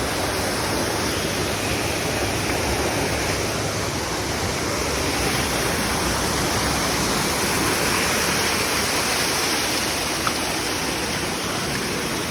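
Steady rush of water pouring over a waterfall and down a rocky stream.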